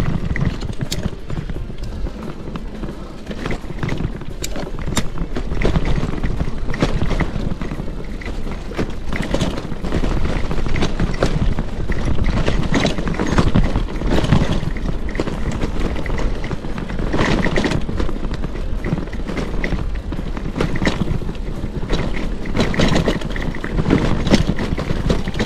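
Mountain bike rattling and clattering over a stony trail, with a constant rumble of wind and tyre noise on the bike-mounted microphone.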